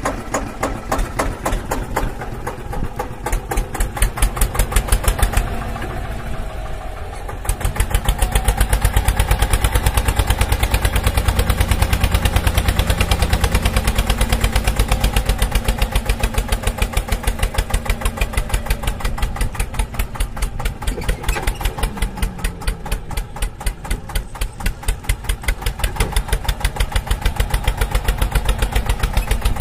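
Tractor engine sound running steadily with a fast, even beat, changing abruptly about seven seconds in.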